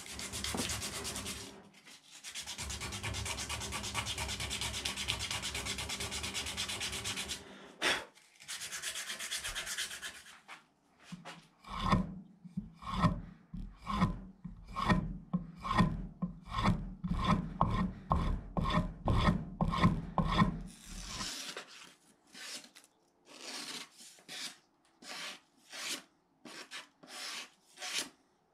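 Steel knife blade scraping steadily, then drawn back and forth over a flat sharpening board on the bench at about two strokes a second, honing the edge. Near the end come lighter, quicker slicing strokes as the blade cuts through a sheet of paper to test its sharpness.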